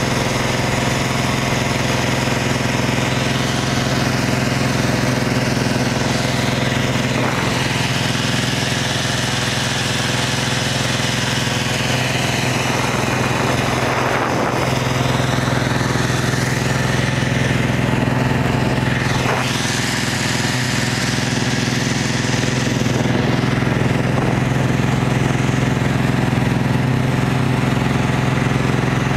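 Snowmobile engine running steadily under way, a constant even drone with a rushing hiss over it.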